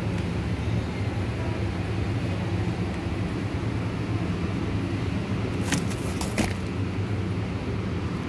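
Steady low hum of a supermarket's refrigerated meat display and store ambience, with a few short clicks about six seconds in.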